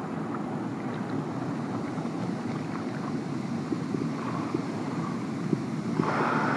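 Hot tub jets running, the water churning and bubbling, heard muffled through a phone's waterproof case held in the water. About six seconds in the rushing turns brighter and louder.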